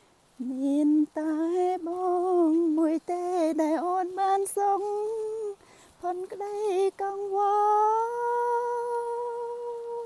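A woman humming a tune in short phrases, ending on a long held note.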